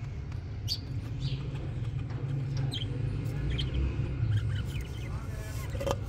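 Budgerigars giving short, high chirps every second or so, over a steady low hum.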